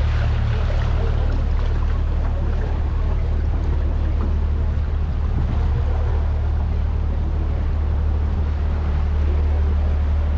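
Canal tour boat's motor running with a steady low drone, under the wash of water rushing along the hull.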